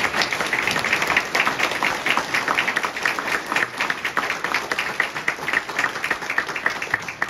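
An audience applauding: many hands clapping in a dense, even patter that eases off slightly near the end.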